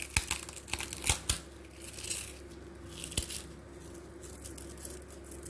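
Crisp fried puris crushed and crumbled by hand. There is a quick run of sharp crunches and crackles in the first second and a half, then softer rustling and crumbling as the pieces fall.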